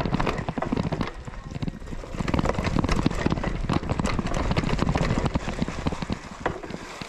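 Mountain bike clattering over a rough trail: a dense, irregular run of knocks and rattles from the frame, chain and tyres, easing briefly about a second in.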